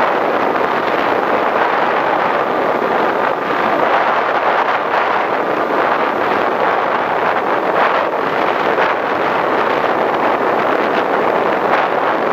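Steady rush of airflow over the microphone of a camera mounted on a Skywalker FPV plane in flight, mixed with the plane's electric motor and propeller running.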